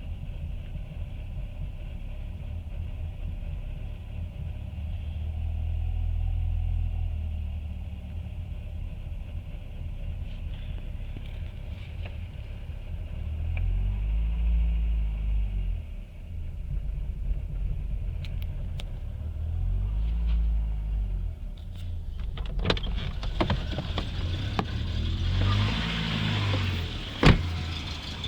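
Mercedes 200TE's four-cylinder petrol engine idling roughly, its speed swelling and falling back three times. In the last few seconds irregular clicking and clattering joins the engine, with one sharp knock near the end.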